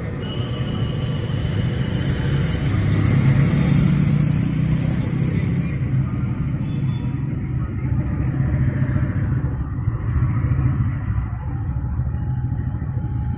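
A steady low rumble, swelling for a moment a few seconds in, with a thin high tone over it at the start.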